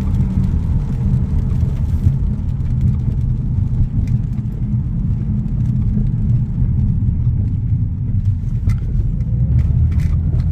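Cabin noise of an Audi A6 3.0T's supercharged V6 sedan on the move: a steady low rumble of engine and tyres on a wet road, heard from inside the car.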